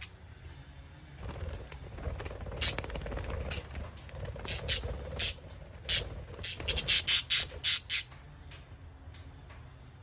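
Budgerigars squawking in a rapid run of short calls that builds up and is loudest about seven to eight seconds in, then stops.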